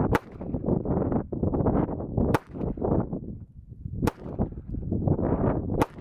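Four shots from a Sig Sauer P220 .45 ACP pistol, about two seconds apart. Heavy wind noise buffets the microphone between the shots.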